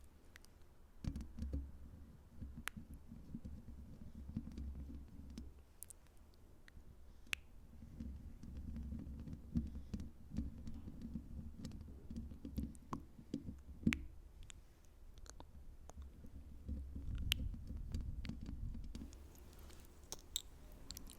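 ASMR triggers made right on a sensitive microphone: fingers scratching and rubbing over it in three long stretches of low rumbling, with scattered light clicks throughout.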